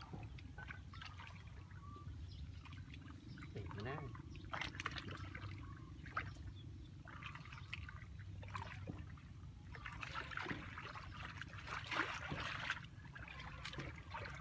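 Hands scooping and squelching through wet, watery mud, with irregular small splashes and slaps. They come thicker and louder about ten to thirteen seconds in.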